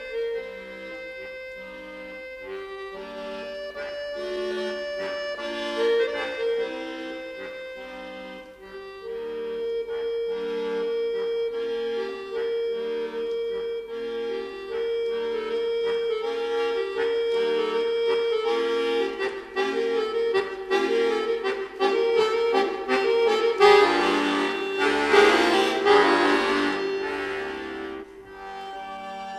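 Solo accordion playing a concert arrangement of orchestral music: quick repeated chords over a moving bass, building to a loud, full passage about 24 seconds in and falling back near the end.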